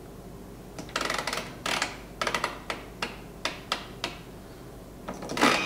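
Light, irregular clicks and taps from the Thermomix's selector dial and touchscreen, about a dozen in three or four seconds, with a louder burst of noise near the end. No steady blending noise is heard.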